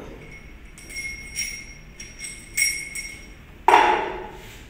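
Metal parts of a dismantled fire hydrant landing valve clinking against each other and the tabletop: a few light ringing clinks, then a louder knock about three and a half seconds in.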